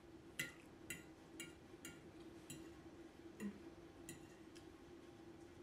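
Metal fork clinking lightly against a ceramic plate: about eight small, ringing taps at uneven intervals, over a faint steady low hum.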